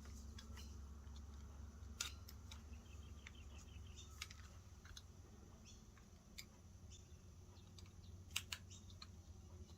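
Faint clicks and taps of board-game box insert pieces being handled and slotted together, a few scattered sharp ticks with two close together near the end, over a low steady hum.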